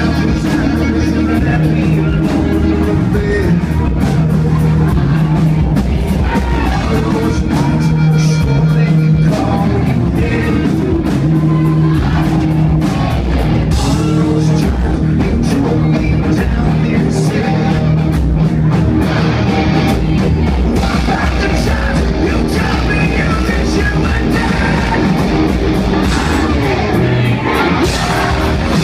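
Rock band playing live: a male singer over electric guitars and drums, loud and steady.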